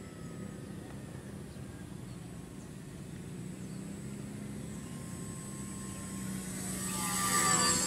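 Motor and propeller of a foam PZL-104 Wilga RC model plane buzzing in flight, growing steadily louder as it approaches, then peaking near the end as it passes close, its pitch dropping as it goes by.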